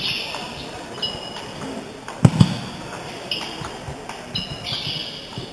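Table tennis rally: the ball clicking off bats and table, with sports shoes squeaking on the wooden floor several times. Two heavy thumps come a little over two seconds in.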